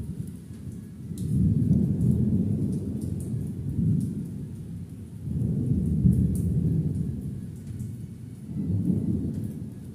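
Rolling thunder, a deep rumble that swells about a second in, again at five to seven seconds, and once more near nine seconds. Faint drips of water tick in between.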